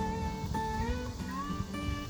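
Background music: a sustained melody whose notes slide up between pitches about the middle, over a low rhythmic backing.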